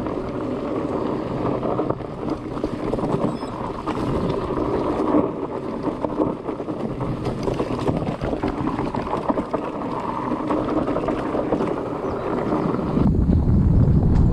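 Fat bike's wide knobby tyres rolling fast over a dirt forest trail, a steady rough rolling and rattling noise mixed with wind on the microphone. About a second before the end it gives way to a deeper wind rumble.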